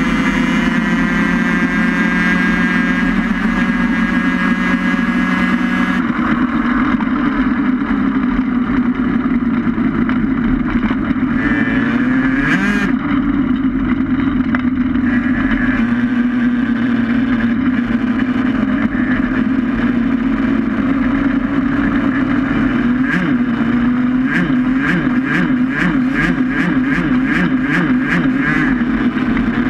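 Steady, loud running drone of a small race vehicle travelling at speed, recorded on board, with road and wind noise. Near the end a quick, regular rattle of two or three beats a second runs through it.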